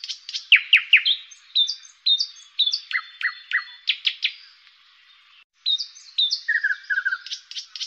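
Songbirds chirping and twittering, several short calls, trills and falling whistles overlapping. It cuts out for a moment about five and a half seconds in, then the same bird recording starts over as a loop.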